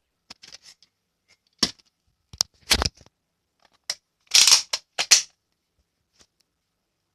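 Nerf blaster being handled and fired at a block of ice: a series of short, sharp clicks and snaps, about eight in all, the loudest and longest about four and a half seconds in.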